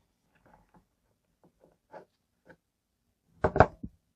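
Faint rustles and ticks of fingers handling fluorocarbon fishing line while working a knot, then a loud cluster of three or four sharp knocks and rubs about three and a half seconds in.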